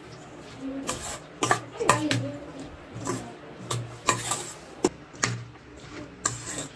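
Spoon stirring a thick mayonnaise-and-chopped-vegetable mix in a stainless steel bowl, with repeated irregular clinks and scrapes of the spoon against the bowl.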